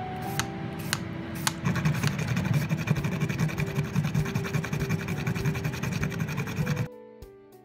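A few scrapes of a vegetable peeler on a potato skin, then fast, continuous rasping as a whole nutmeg is rubbed back and forth on a small metal grater, stopping abruptly near the end.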